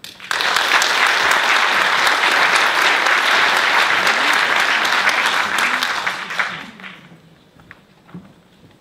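Audience applauding, starting abruptly and dying away after about six seconds.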